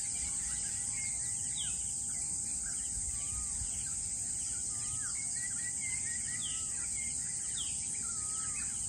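Dawn chorus of many small birds: short chirps and slurred whistled notes, one after another, over a steady high-pitched insect drone and a faint low rumble.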